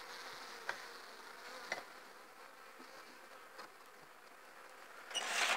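Honeybees buzzing softly around an open hive, with a few light knocks as the wooden hive cover is set down over the frames. A brief louder rush of noise comes near the end.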